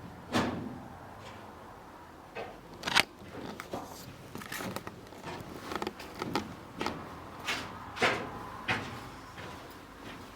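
Footsteps walking at a steady pace, about one and a half steps a second, after a couple of separate knocks in the first few seconds.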